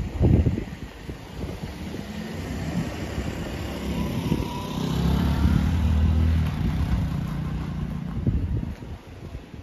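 A car passing on the street alongside, its engine rumble and tyre noise swelling to a peak about halfway through and then fading. A gust of wind buffets the microphone at the start.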